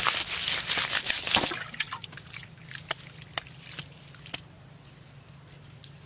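Wet mud being handled and worked: about a second and a half of dense wet rustling at the start, then a few separate wet clicks and drips, then quieter.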